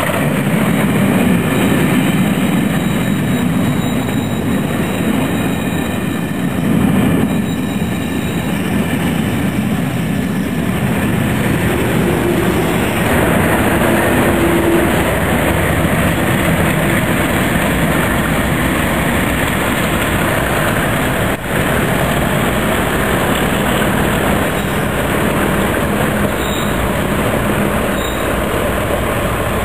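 A train hauled by English Electric Class 37 diesel locomotives runs past at the platform, with the heavy diesel engine sound strongest in the first third and the steady rumble of wheels on rail throughout.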